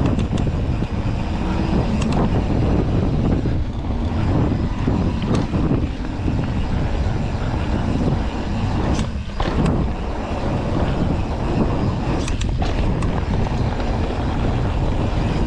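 Mountain bike riding a dirt singletrack trail, heard from a GoPro mounted on the rider: a steady rushing rumble of wind on the microphone and tyres rolling over dirt, broken by a few sharp knocks and rattles from the bike.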